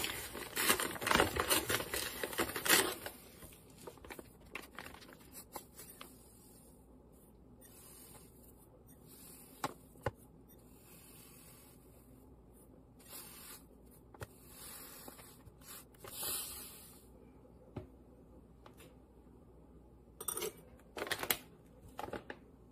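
Paper sugar bag crinkling loudly for the first few seconds as it is handled and opened, then granulated sugar poured from it into a stainless stock pot in a few short, soft hissing pours, with scattered light clicks and knocks.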